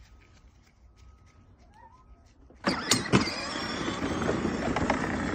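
A child's battery-powered ride-on toy truck starting up about two and a half seconds in: a sudden, steady, noisy whir from its electric drive, with its plastic wheels rolling over grass.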